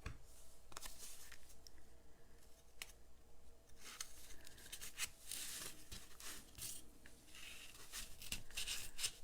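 Faint rustling and scraping of paper against cardstock as a small scored paper strip is pushed and worked into a tight slot, with small clicks along the way.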